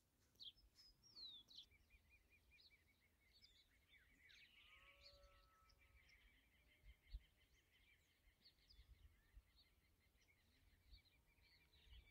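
Near silence with faint birdsong: scattered short chirps and a quick run of repeated notes in the first few seconds, with a single soft low thump about seven seconds in.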